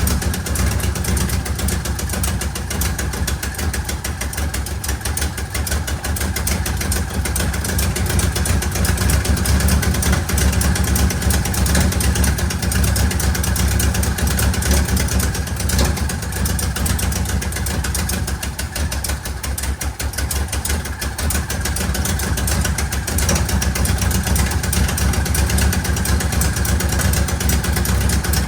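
A car engine running steadily, low-pitched and even, with no clear revving or change.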